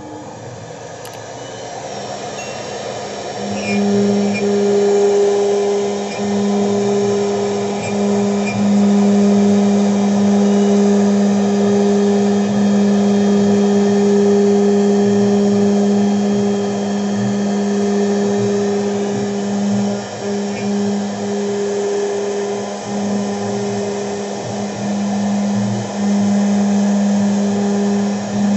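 CNC router spindle running at speed, a steady motor whine, while a V-bit carves MDF. It builds up over the first few seconds, then holds steady with brief dips as the cut load changes.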